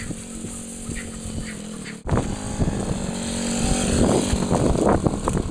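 Small engine of a youth ATV running. About two seconds in it becomes suddenly much louder and closer, with its pitch rising and falling as it is revved.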